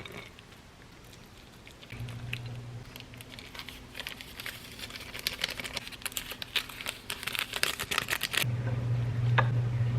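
Kitchen handling noises while cooked ramen and eggs are taken out of the pot and dished up: quick small clicks, scrapes and crinkling that thicken from about four seconds in, over a steady low hum that gets louder near the end.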